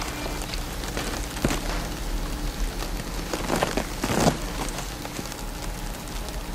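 Wood fire crackling and popping inside an oak wine barrel, heating the staves so they can be bent into shape. There are a few louder crackles near the middle.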